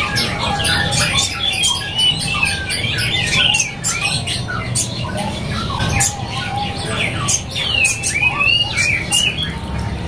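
Several caged songbirds chirping and twittering over one another, many short rising and falling whistled notes, with a steady low hum underneath.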